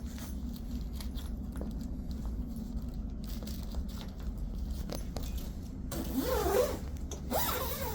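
Zipper on a golf cart enclosure panel being run in two short rasping strokes, the first about six seconds in and the second near the end, over a steady low hum.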